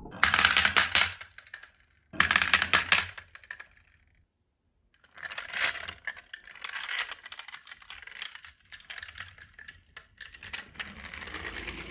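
Glass marbles rolling off the end of a wooden wave slope and clattering into the bed of a toy pickup truck, in two quick bursts of clicks. After a short pause, softer scattered clicking and rattling as the loaded toy truck is pushed along by hand.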